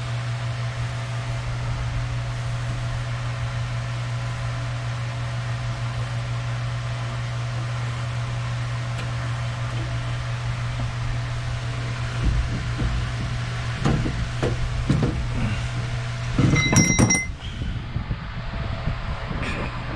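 Steady low hum with scattered metal knocks in the second half, as steel parts of a Chrysler 9.25 rear differential are handled during teardown. About seventeen seconds in comes the loudest moment, a quick cluster of metal clinks with a brief ringing tone like struck steel.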